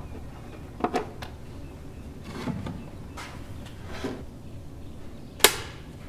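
Hands handling small parts and wiring: a few light clicks about a second in, two soft rustles, then one sharp click near the end, the loudest sound here.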